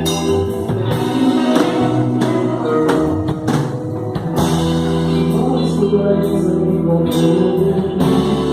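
A gospel band playing music: sustained held chords over repeated percussive strokes.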